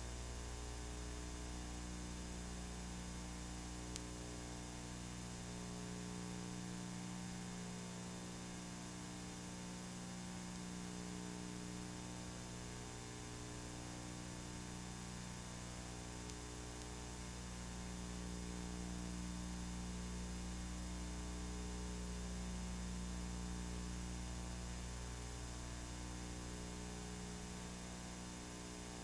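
Steady electrical mains hum with faint hiss and no other sound.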